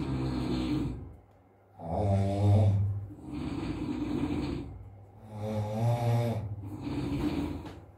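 A sleeping man snoring loudly and rhythmically: a strong pitched snore about every three and a half seconds, with noisy breaths in between.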